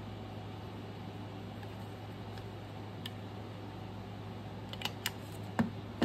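Craft papers being handled on a cutting mat: a few light clicks and taps, one about halfway and several near the end, over a steady low hum.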